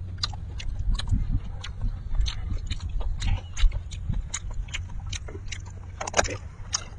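Close-miked eating sounds of beef being chewed: a run of quick, wet mouth clicks and lip smacks over a steady low rumble.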